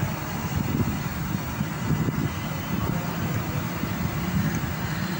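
Steady low rumbling background noise with no clear event in it.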